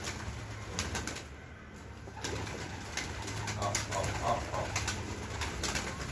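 Domestic pigeons cooing, with several short sharp wing flaps as birds take off and land around the loft.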